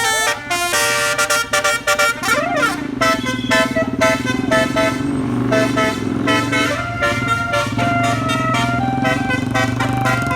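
Bus 'telolet basuri' musical air horn playing a fast tune of short stepped notes, with a few swooping slides in pitch about two and a half seconds in, over the steady drone of the bus engine.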